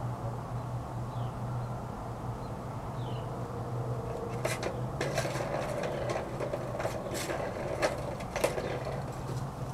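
Scattered plastic clicks and rattles from a kitten pawing at a plastic ball-track cat toy, coming in about halfway through. Underneath runs a steady low hum, with a short high falling chirp repeating about every two seconds.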